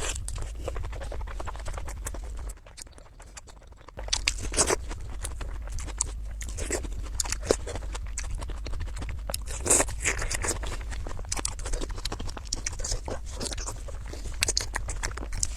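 Close-miked eating sounds: a person chewing and biting food in many short, wet smacks and crunches, with a brief lull about two and a half seconds in.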